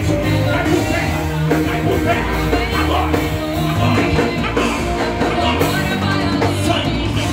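Rock-style worship band music with a steady beat, bass and guitars, with some singing over it.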